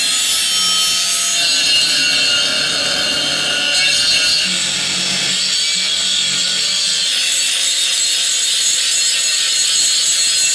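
Angle grinder with a cutting disc running steadily as it cuts through an old metal irrigation pipe.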